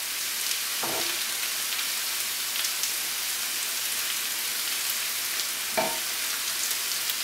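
Tomato slices and vegetables frying in a pan with a steady sizzle and fine crackles while a wooden spoon stirs them. Two brief knocks stand out, about a second in and just before six seconds.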